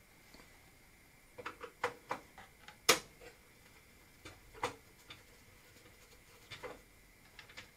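Scattered small clicks and knocks as a metal expansion-card bracket and plastic parts are handled and fitted inside an open Commodore PC 10-SD computer case. The loudest is a sharp click about three seconds in.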